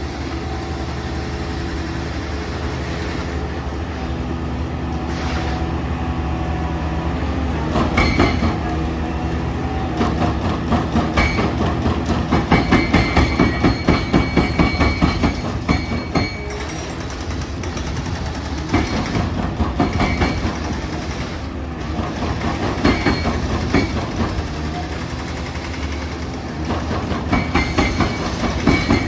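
Komatsu hydraulic excavator's diesel engine running steadily, with several bouts of rapid metallic clanking, each lasting a few seconds, and a thin high whine during them.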